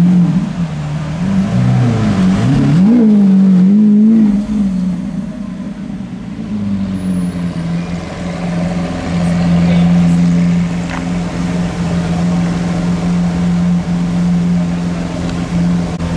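Lamborghini Aventador's V12 engine revved in several quick blips during the first few seconds, then running at a steady low speed as the car rolls off slowly.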